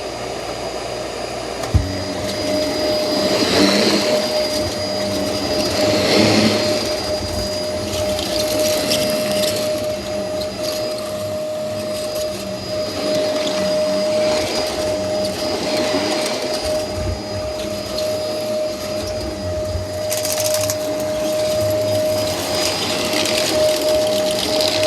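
Vacuum cleaner running over a rug, with a steady high motor whine. The rush of air swells and eases about every two and a half seconds as it is pushed back and forth. A single knock comes about two seconds in.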